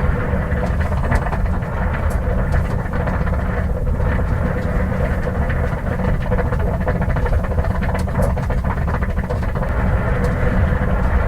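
1950 Ford six-cylinder engine running steadily at idle while overheating, its radiator water boiling up the hose, with a dense low rumble and scattered small ticks.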